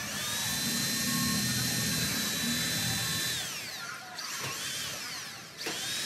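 Cordless drill driving into a cage's sheet roof. Its motor whine spins up, holds steady for about three seconds, then winds down. A short second run follows, and it spins up again near the end.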